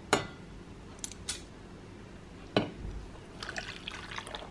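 A metal spoon clinks sharply against a stainless steel saucepan, twice loudly and twice more lightly. Then, about three and a half seconds in, water is poured into the pan onto dry cocoa powder and sugar, splashing and pattering.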